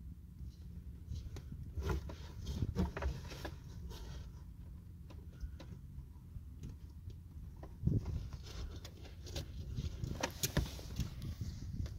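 Scattered knocks, clicks and rattles of parts being handled during work on a car's power seat, over a low wind rumble on the microphone. The knocks bunch up about two to three and a half seconds in, again around eight seconds, and near ten and a half seconds.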